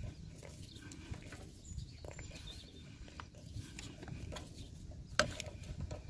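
Hand work on small metal parts: scattered light clicks and scrapes of a screwdriver and fittings being handled, with one sharper click about five seconds in, over a low rumble.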